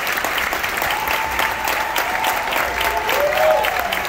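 Audience applauding steadily, with voices calling out over the clapping.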